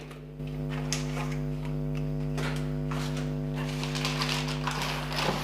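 Steady electrical hum with a few soft handling knocks and rustles.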